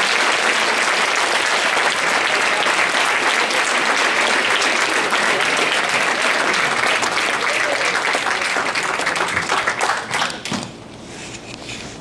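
Audience applauding with dense, steady clapping that dies away about ten seconds in, leaving a few scattered claps.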